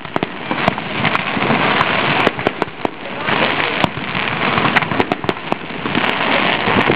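Fireworks display: aerial shells bursting with many sharp bangs in irregular quick succession, over a continuous dense hiss.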